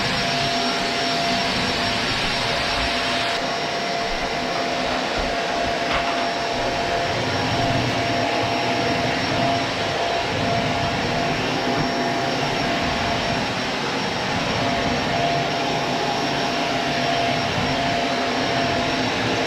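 Shark ZU102 Rotator Pet upright vacuum cleaner running steadily: a constant rush of motor and airflow with a steady whine.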